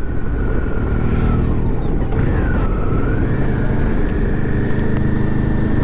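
Suzuki V-Strom 650's V-twin engine running steadily at low speed, heard from the rider's helmet camera along with wind noise. A thin high whine runs through it and dips and rises again about two seconds in.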